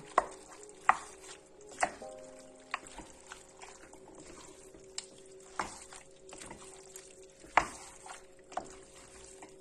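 Wooden spoon stirring cut cuttlefish pieces into a stew in a metal pot, with a soft mixing rustle and irregular sharp knocks of the spoon against the pot, about one every second or so.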